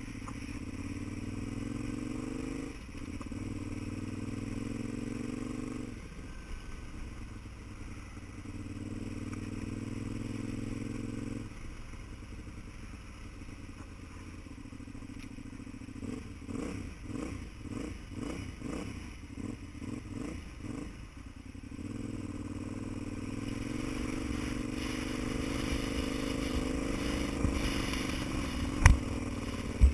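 A vehicle's engine is under way, rising in pitch through the gears and easing off. About sixteen seconds in it runs rough for several seconds, its power pulsing on and off about twice a second: the engine hiccuping, having a hard time. It then pulls smoothly again, with a sharp knock near the end.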